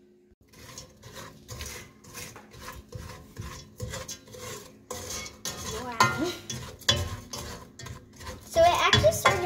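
A spoon stirring granulated sugar with a little water in a stainless steel pot, scraping and grating against the pan in repeated strokes, a few a second: the sugar being worked at the start of making caramel.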